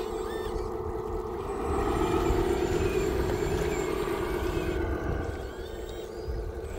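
A 1:14-scale radio-controlled Volvo A40G articulated dump truck drives loaded through shallow water with a steady whine from its drive motor and gears. The whine grows louder about two seconds in and eases off near the end. Water churns around its wheels.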